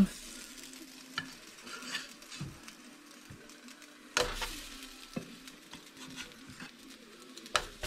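Pizza pops sizzling in hot olive oil in a non-stick frying pan as they are set in with a plastic spatula, with scattered clicks and a louder knock about four seconds in.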